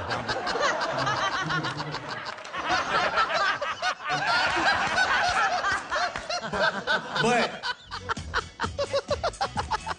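Cackling laughter in repeated bouts, from several laughing clips cut one after another.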